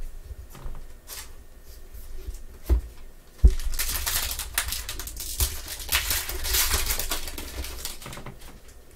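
Foil trading-card pack wrapper crinkling as it is torn open and pulled apart by hand, after two light knocks on the table about three seconds in.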